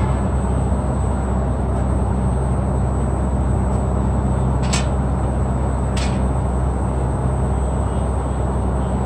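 Chigo VRF air-conditioning outdoor units running: a steady low compressor hum under the rushing of the fans, with a thin high whine. Two sharp clicks about a second apart sound midway through.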